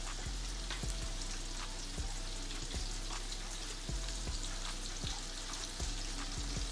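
Flour-coated mushrooms deep-frying in hot grease: a steady sizzle with scattered pops and crackles.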